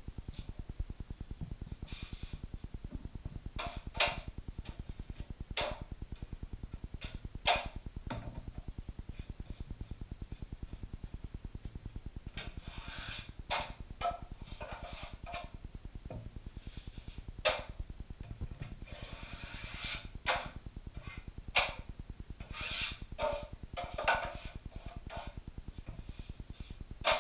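Drywall taping knife scraping and tapping against a mud pan and the wall as joint compound is spread on a corner: scattered short scrapes and knocks, busier in the second half, over a faint steady low buzz.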